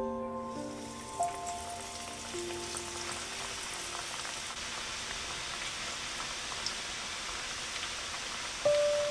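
Chicken frying in hot oil, a steady sizzle. Background music notes fade out over the first few seconds and come back near the end.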